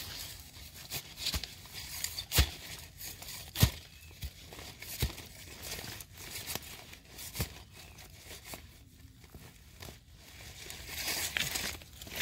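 Rustling, crackling and tearing of leaf litter and soil as termite mushrooms are dug out and pulled up by hand, with scattered sharp snaps, the loudest a few seconds in.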